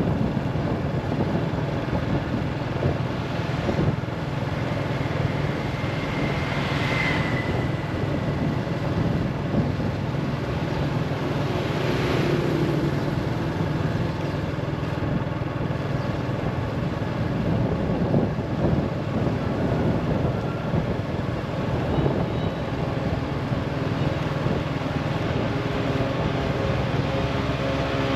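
Steady drone of a running motor vehicle, with two brief swells in the noise about seven and twelve seconds in.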